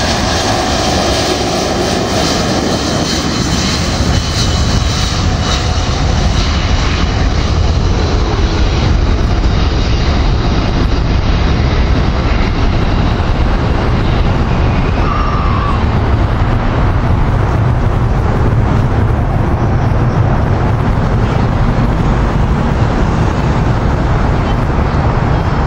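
Four-engine Douglas DC-8 freighter's jet engines at takeoff power, a loud steady roar as it rolls down the runway and lifts off. The high hiss fades over the second half as it climbs away, leaving mostly a low rumble.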